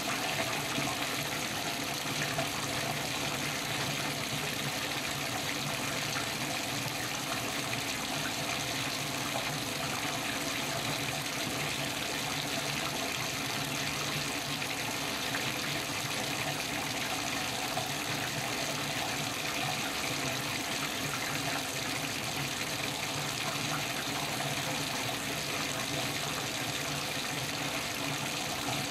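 Bathtub faucet running steadily, water pouring into a filling tub.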